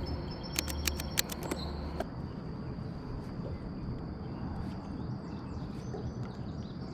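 Open-air river ambience with a steady high-pitched insect drone. A quick run of sharp clicks sounds about half a second to two seconds in.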